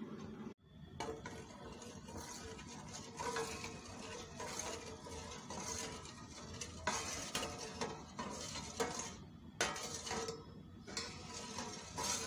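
Metal spoon stirring coconut milk in a metal pot, with a run of irregular scrapes and clinks against the pot. A short break about half a second in. The coconut milk is being heated with sugar and salt and kept stirred so that it does not split.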